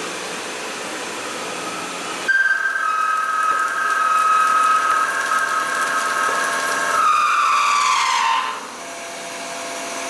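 CNC machine running: steady machine noise, then about two seconds in a steady high whine joins it. Near the end the whine falls in pitch as it winds down.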